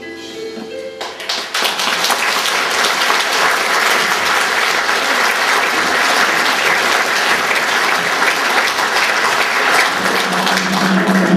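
Audience applauding, which swells in about a second in as the last notes of a song die away. Music comes back in near the end.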